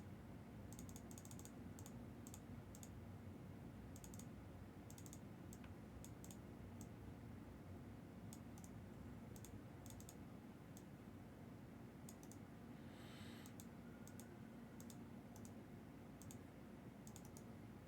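Near silence: a low steady hum with faint, irregular light clicks scattered throughout, and a brief soft swish about two-thirds of the way in.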